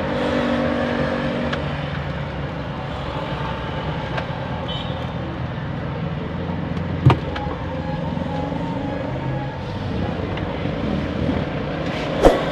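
Two sharp clicks of hand tools or parts knocking against the car's air-conditioning evaporator housing, one about halfway through and one near the end, over a steady low background rumble.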